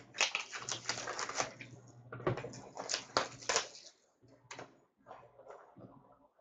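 Rustling and crinkling of a hockey-card box and its foil card pack being handled and opened by hand, in quick irregular strokes for about four seconds, then fainter scattered rustles.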